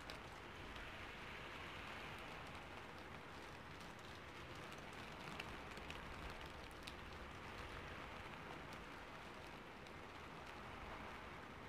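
Faint, steady rain falling, with scattered sharp ticks of single drops.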